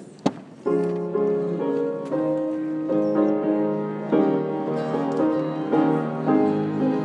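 A sharp click, then a keyboard instrument starts playing slow held chords about two thirds of a second in, changing chord roughly every second: postlude music at the close of a church service.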